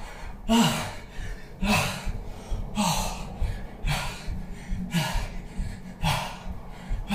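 A man breathing hard from exertion while jumping, with a loud gasping breath about once a second. Each breath carries a short voiced note that falls in pitch.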